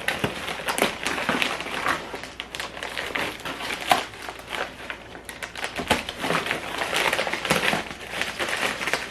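Packaging on flat-pack furniture being handled and pulled open: irregular crinkling and rustling with scattered clicks, and a sharper knock about four seconds in.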